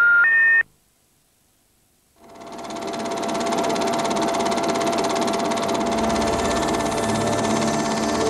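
A few stepped electronic beeps end in the first half second. After a short silence, a film projector's steady, rapid mechanical clatter with a constant hum fades in about two seconds in and runs on.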